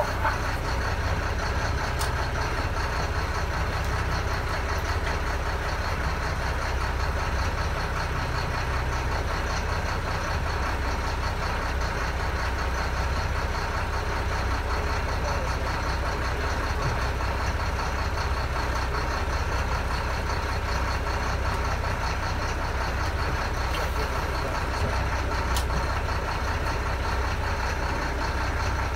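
Boat engine idling with a steady, even low rumble.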